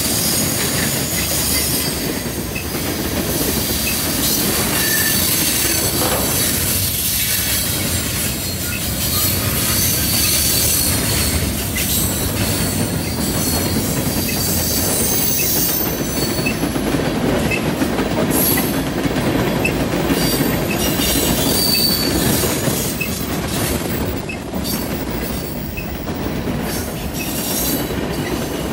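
Freight train cars (tank cars, gondolas and bin-carrying flatcars) rolling past, their steel wheels making a steady rolling noise on the rail. Thin high-pitched wheel squeal runs through it, and later come repeated clicks as the wheels cross rail joints.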